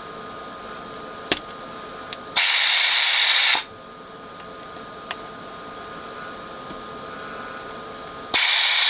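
Electric desoldering gun's built-in vacuum pump switched on twice, each time for just over a second, sucking molten solder off circuit-board lugs. It is a loud buzzing hiss that starts and stops abruptly, with a few faint clicks in between.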